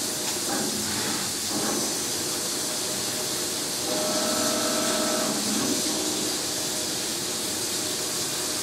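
Pinnacle QV-137 vertical machining center rigid-tapping 4140 steel with a 5/8-11 high-speed steel tap at 250 RPM in low gear, under a steady hiss of flood coolant spraying. A steady machine whine joins in for about a second and a half around the middle.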